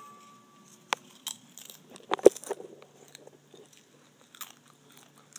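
Close handling noise: scattered clicks and crackles, a sharp knock about a second in and a louder clatter of knocks a little after two seconds.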